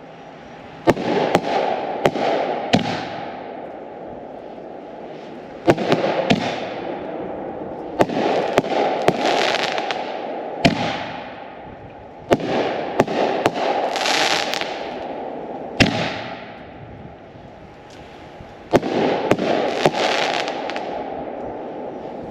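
Winda Tank Busters canister shells bursting in the air: a string of sharp booms, some coming in quick pairs and threes, which are the double and triple breaks. Each boom trails off into a fading wash of sound.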